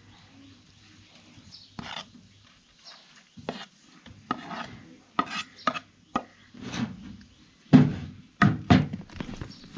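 Knife chopping raw beef into pieces on a cutting board: irregular sharp knocks, the loudest about eight seconds in.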